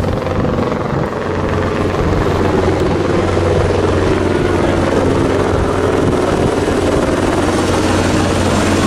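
Light helicopter flying overhead: a steady, loud rotor and engine drone whose pitch slowly shifts as it passes.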